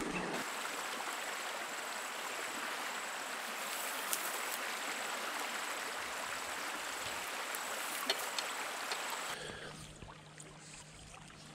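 Small rocky creek running over stones, a steady rushing of water that becomes much quieter about nine seconds in.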